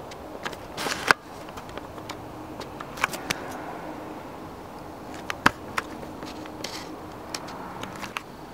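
Scattered sharp clicks and scuffs from handling and movement, the loudest about a second in and again about five and a half seconds in, over a steady faint hiss.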